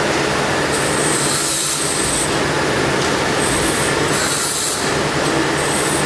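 Steady, loud machine running, with short bursts of high hiss coming and going about five times.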